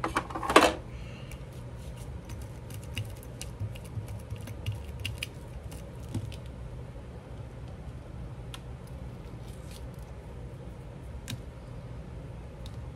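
Small clicks, taps and paper handling sounds as excess glue is worked off paper by hand, with a sharper knock about half a second in. A steady low hum runs underneath.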